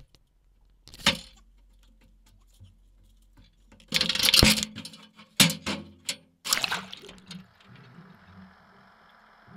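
Water splashing in several short bursts, the loudest a little under halfway through, followed near the end by a boat engine running steadily.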